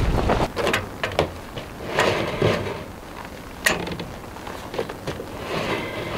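Scattered knocks, clunks and rustles of camping gear being handled, with one sharp click a little past halfway. Wind rumbles on the microphone briefly at the start.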